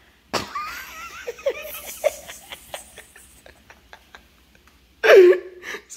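A woman laughing: a run of quick, high giggles that trails off after about three seconds, followed near the end by a loud spoken word.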